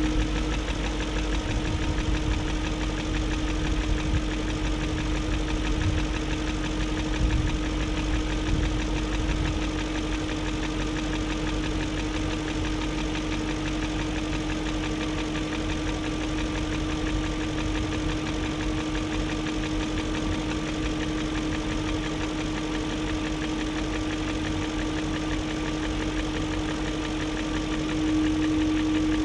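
BMW M62TU 4.4-litre V8 idling steadily with a fast ticking riding over the idle. The tick persists after new timing chain guides, timing set and VANOS profile gaskets, and the owner suspects a failing VANOS unit.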